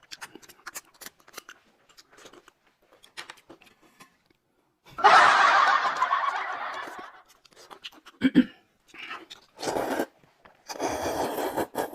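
Close-up eating sounds: small crunches and wet clicks of chewing. A louder, noisier burst comes about five seconds in and fades over two seconds, and a few more short bursts follow near the end.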